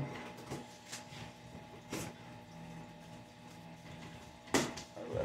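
Faint handling noises from opening a shipping package: a few light clicks and taps, then a sharper knock about four and a half seconds in.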